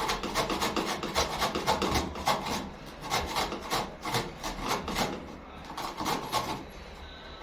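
Turnip being grated on a hand grater: quick rasping strokes, about four or five a second, with a short pause about five seconds in.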